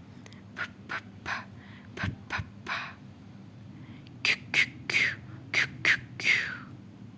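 A voice making short unvoiced consonant sounds for phonics letter drills, puffs and hisses said one after another. There are about a dozen of them, in a run during the first three seconds and a second run from about four seconds in.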